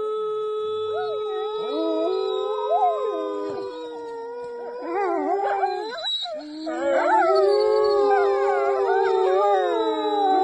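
A person howling through cupped hands in a long steady note, joined by several wolves howling together. Their howls overlap and glide up and down in pitch, and the chorus grows louder in the second half.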